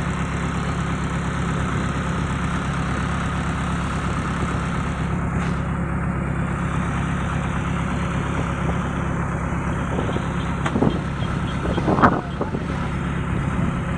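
Kubota DC-70 combine harvester's diesel engine and machinery running steadily while cutting rice. Near the end two short louder sounds break in, the second the loudest.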